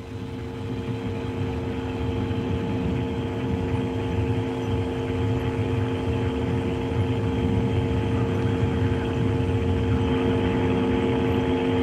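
Nitrogen purge of the Soyuz-FG rocket's engine combustion chambers on the pad: a steady rushing roar that builds over the first couple of seconds and then holds, with a steady hum under it. The purge clears fuel and oxidizer vapours from the engines to make them fireproof before launch.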